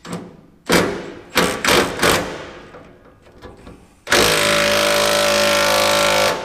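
A few sharp metallic clanks, then a power tool runs steadily for about two seconds and cuts off abruptly, tightening the exhaust flex-pipe connection.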